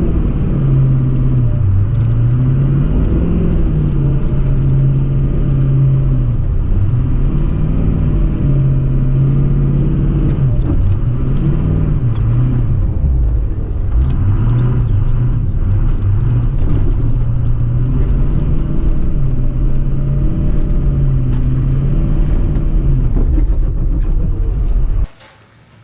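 A 6-liter truck engine running under load while being driven, its pitch rising and falling as it is revved and eased off. It cuts off suddenly near the end.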